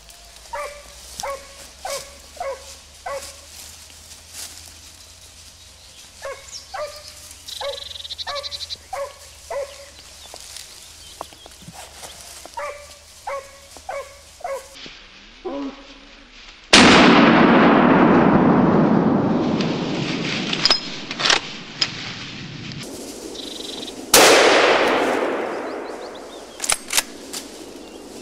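Dogs barking in quick series in three rounds, then two shotgun shots about seven seconds apart, each loud blast followed by a long fading echo through the woods.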